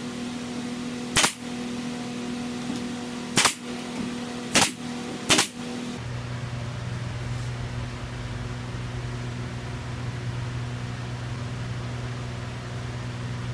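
Pneumatic brad nailer firing four single sharp shots in the first half, driving nails into wooden trim, over a steady low hum.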